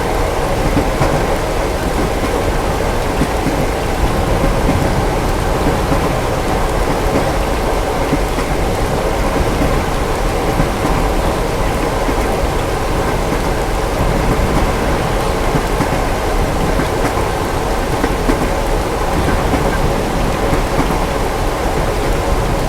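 Steady rain with a continuous low rumble of distant thunder beneath it, even in level throughout, with no single thunderclap standing out.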